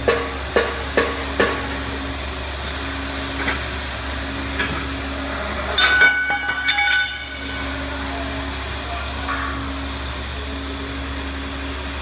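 Hypertherm Powermax 85 plasma torch cutting a slot in steel tube, with a steady hiss. There are a few sharp clicks in the first second and a half, and a clatter of metallic clicks and ringing about halfway through, as the slot cut finishes.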